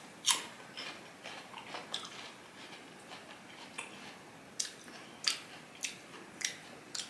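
Crisp bite and chewing of a piece of wax apple close to the microphone. There is a crunch just after the start and a run of softer chews, then sharper crunches about every half second in the second half.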